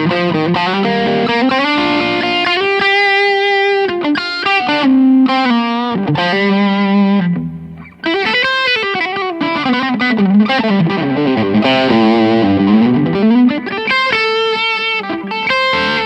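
2024 Gibson Custom Shop '59 Les Paul Standard reissue electric guitar played as a lead line of sustained single notes with string bends, breaking off briefly about eight seconds in.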